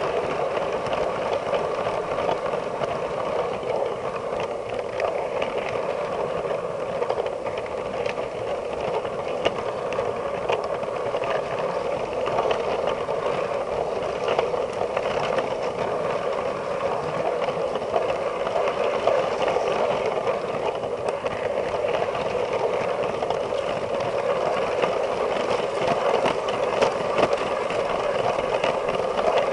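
Lego 9V train motor whirring steadily as the train runs along plastic track, with the wheels rattling and occasional light clicks, heard from on board the moving train.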